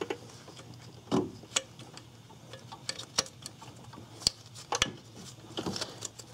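Scattered small metal clicks and taps, a few sharper than the rest, as a timing belt tensioner is swivelled by hand in a cramped engine bay to drop its tang into the notch in the engine block.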